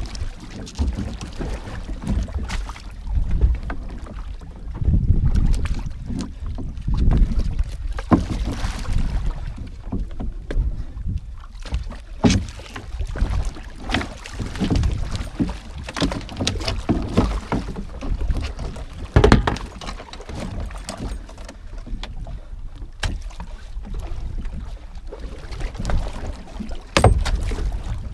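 Wind rumbling on the microphone and water sloshing against a small fishing boat's hull, broken by a series of sharp knocks and splashes as a gaffed yellowfin tuna is held against the side of the boat.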